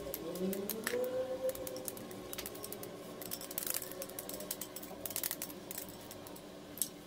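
Scattered light clicks and taps of a whisk and bowl against each other and against the glass baking dish as cake batter is emptied out.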